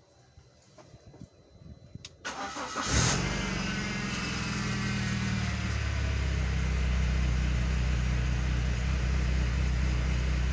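BMW E46's N42 four-cylinder engine cranked briefly by the starter about two seconds in, catching with a loud flare and settling into a steady idle. The idle is very rough and the engine shakes badly, a fault the mechanic traces to a failed crankcase vent oil separator.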